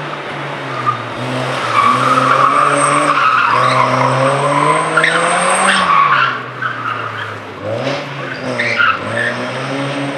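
BMW E36 3 Series engine revving hard under load, its pitch climbing for about five seconds, then dropping sharply as the throttle lifts and climbing again near the end. The tyres squeal as the car is thrown through the tight turns.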